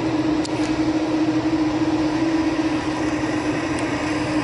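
Boeing 787 Dreamliner's jet engines idling as it taxis: a steady hum with one held tone over a constant rushing noise.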